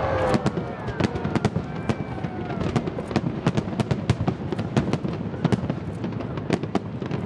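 Aerial fireworks bursting: a rapid string of sharp bangs and crackles, several a second, over a continuous low rumble.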